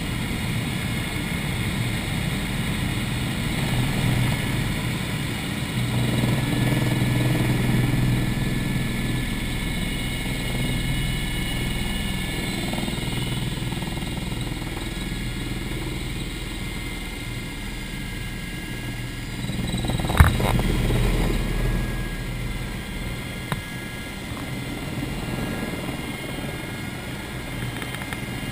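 Eurocopter EC120 Colibri helicopter heard from inside its cabin in flight: the steady running of its turboshaft engine, gearbox and rotor, a low thrum under several steady whining tones. The low thrum swells briefly around six seconds in and again around twenty, where a single sharp click is also heard.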